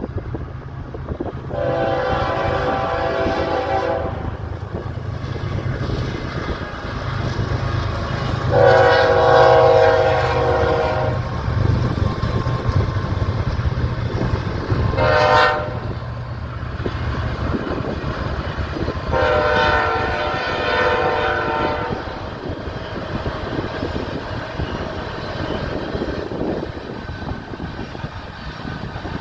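Locomotive air horn sounding the grade-crossing signal: two long blasts, a short one, then a long one, each a chord of several tones. Under the horn runs the low steady rumble of the train.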